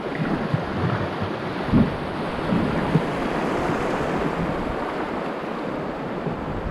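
Fast river water rushing over shallow rapids around a kayak, with a few dull thumps in the first three seconds.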